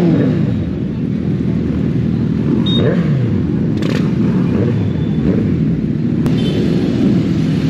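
Motorcycle engines running at low speed in slow, packed traffic. The rider's own Kawasaki Z800 inline-four sits closest, with other superbikes around it. Revs fall away at the very start, a short rev rise and fall comes about three seconds in, and a couple of sharp clicks follow.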